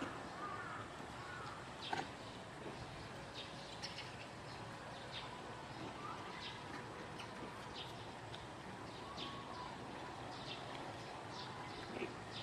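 Faint outdoor background with scattered short high chirps and one sharp click about two seconds in.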